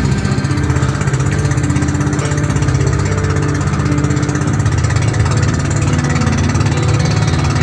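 Engine of a motorized outrigger boat (bangka) running steadily under way, a fast even putter.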